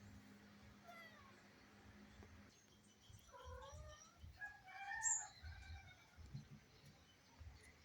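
Cat meowing faintly, a few short calls bunched about three to six seconds in, with a brief sharp high click about five seconds in.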